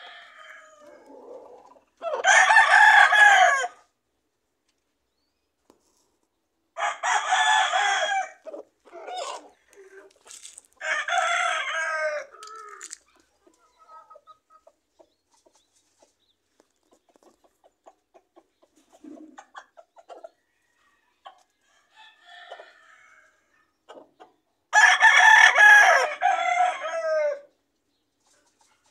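Gamecock roosters crowing: three loud crows in the first half, a few seconds apart, and a longer one near the end. Softer, scattered clucking and calls fill the gaps.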